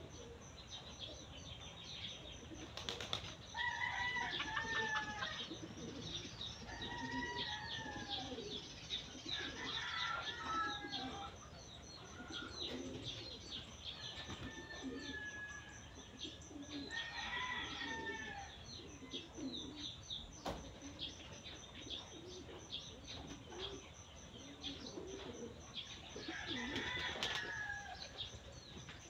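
Chickens clucking and calling, several short arched calls spread over the stretch, over a busy chirping of small birds.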